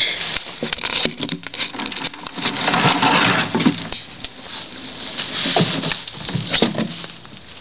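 Irregular knocks, clatter and rustling as a wire cage trap on a wooden board is handled and shaken to get an opossum out, with a louder stretch of rustling about three seconds in.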